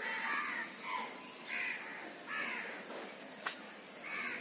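Crows cawing, about five calls spaced roughly a second apart, with one sharp click about three and a half seconds in.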